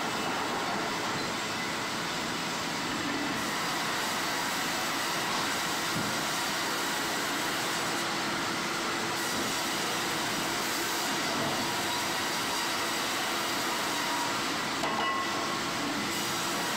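Wood-cutting sawmill machinery running, a steady, even mechanical noise with faint steady tones.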